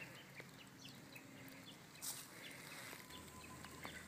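Faint woodland ambience with small bird chirps repeating irregularly, a few soft clicks, and a brief rustle about two seconds in.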